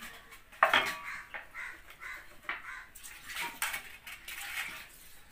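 A wooden ladle scraping and knocking in a clay pot, and pieces of cooked chicken clattering and sliding into an aluminium pot. One sharp knock with a brief metallic ring comes under a second in.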